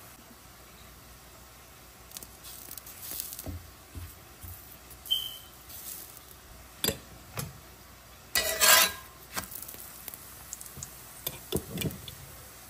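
Metal spoon scraping and clicking on a hot cast-iron tawa as ghee is spread over a chapati, over a faint sizzle. The clicks come irregularly, with one longer, louder scrape a little past the middle.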